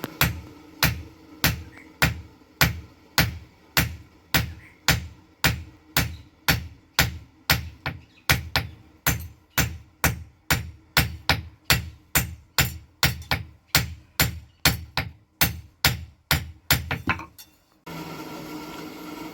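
Blacksmith's hammer striking iron on an anvil in a steady rhythm, a little under two blows a second, each blow ringing briefly, while forging an iron handle for an uruli. The hammering stops near the end.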